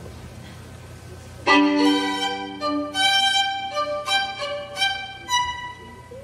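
Solo violin, bowed: after about a second and a half of low hum it comes in with a loud opening note and plays a short phrase of several separate notes, dying away near the end.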